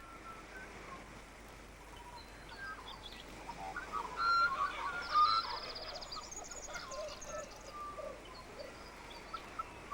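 Several small birds chirping and whistling in short, scattered calls, with a fast, high rattling trill about five seconds in.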